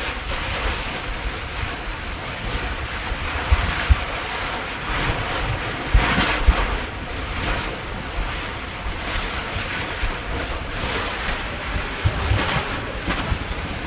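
Ocean surf and wind buffeting the microphone at a lava ocean entry. Irregular louder surges and low thumps come through, the strongest about six seconds in and again near the end.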